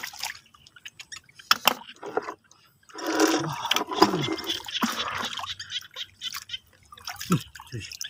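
Shallow water splashing and dripping as hands scoop through it and feet wade in it, with a longer run of splashing and pouring about three to five seconds in.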